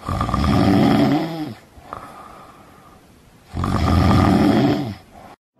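A person snoring: two loud, rattling snores about three and a half seconds apart, with a softer breath in between.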